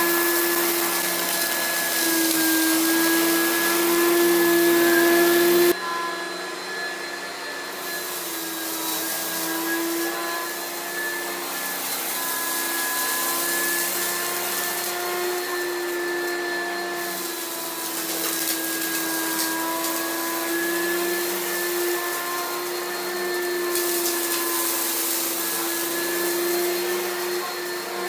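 Oreck XL Pro Plus upright vacuum cleaner running, a steady motor hum. About six seconds in, the sound becomes quieter and duller.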